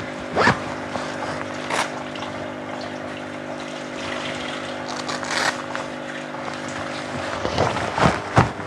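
Steady hum of an aquarium pump with water bubbling from an air stone, and a few brief rustles and scrapes of a nylon rain jacket being fastened and adjusted.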